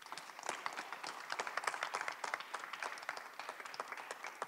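Audience applauding, many hands clapping in a dense, even patter.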